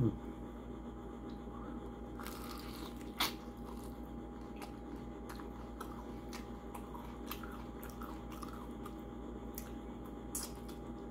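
Biting and chewing a crispy fried chicken wing coated in sauce, with a few short sharp crunches scattered through, over a steady low hum.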